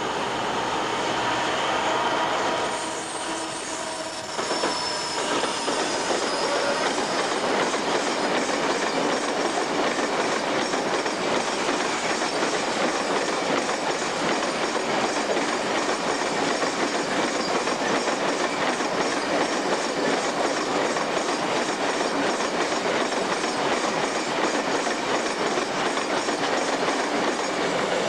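Freight train wagons rolling past on the main line, wheels clicking steadily over the rails. High wheel squeal in the first few seconds, then a short dip in level about four seconds in.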